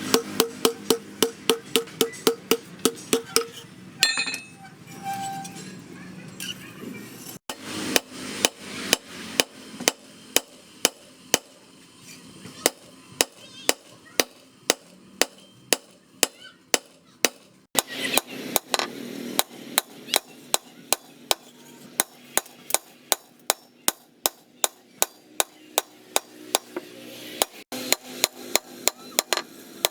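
Hand hammer striking leaf-spring steel on an anvil in runs of blows, about four a second with a ringing tone over the first few seconds. After a few seconds' pause with scattered softer knocks, it goes on at about two to three blows a second.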